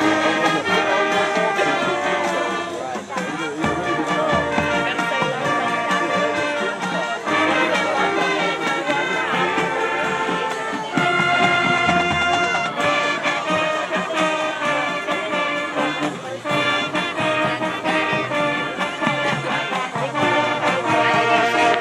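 High school marching band playing a rock arrangement, with brass (trumpets and trombones) carrying held melody notes over the band.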